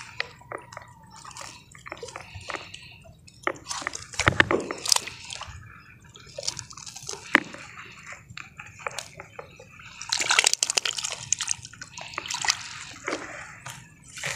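Shallow lake water splashing, sloshing and dripping in irregular bursts as a mesh fish keep net is handled in the shallows. A denser run of splashing comes about ten seconds in.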